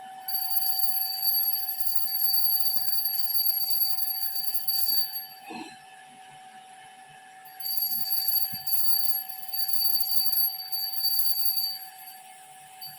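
A steady, high-pitched electronic whine with hiss. It sounds for about five seconds, stops, then sounds again for about four seconds, over a constant lower hum.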